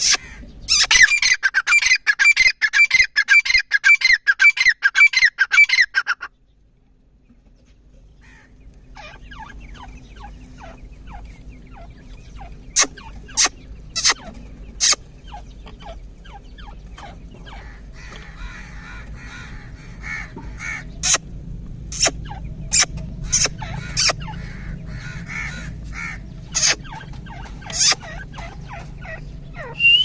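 Captive grey francolin calling: a loud, rapid run of repeated pitched notes, about five a second, that stops abruptly after some five seconds. After that only scattered short sharp notes over a low background.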